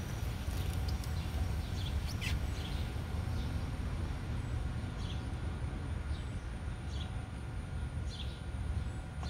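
Outdoor background: a steady low rumble with short bird chirps every second or two, one sharper downward chirp about two seconds in.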